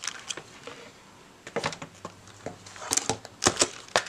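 Clear stamp sets in plastic sleeves crinkling and tapping as they are picked up and set down, a few short separate rustles and clicks, the loudest about three seconds in.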